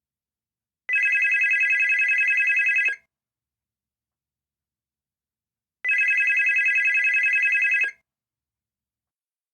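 Telephone ringing twice, each ring a fast pulsing trill about two seconds long, with a pause of about three seconds between rings, as in a standard ring cadence.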